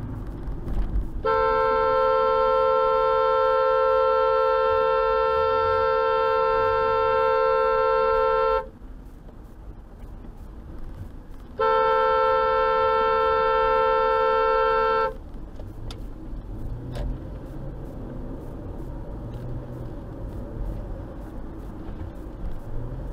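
Car horn honking in two long blasts, the first about seven seconds and the second about three and a half, a warning at a slow, erratic driver ahead. Steady road noise from inside the moving car runs underneath.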